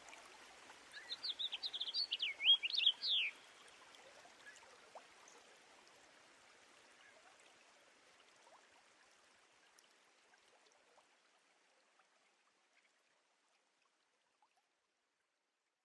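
A bird singing a short run of quick, high chirps, over a faint rushing hiss like running water that slowly fades away.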